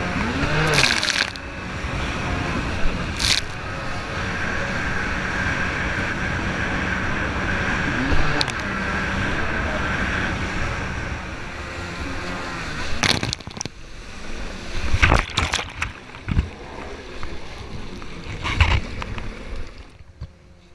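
Kawasaki 550 stand-up jet ski running at speed over choppy water, its two-stroke engine going steadily under the rush of spray. In the second half sharp slaps of the hull and spray against the water come every second or two, and the noise falls away near the end.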